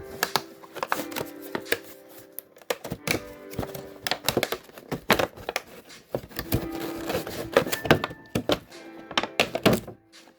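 Background music with held notes, under many quick clicks, taps and knocks from a trading card collection box and its packaging being handled and opened by hand.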